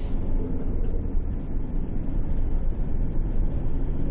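Delivery van driving at road speed, heard inside the cab: a steady low rumble of engine, tyres and wind.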